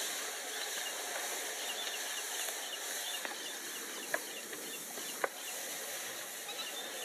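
Wetland ambience: many small bird chirps over a steady hiss, with two sharp knocks about four and five seconds in.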